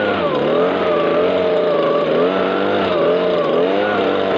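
Stihl BG56 leaf blower's small two-stroke engine running, its speed rising and falling again and again rather than holding steady.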